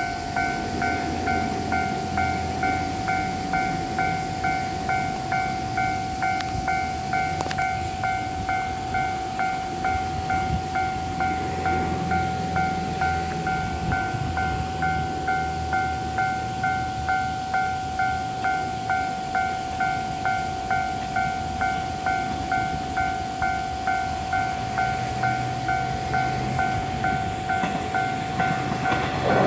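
Japanese railway level-crossing warning bell ringing steadily at about two strikes a second. Near the end the low rumble of an approaching JR West 113 series electric train rises beneath it.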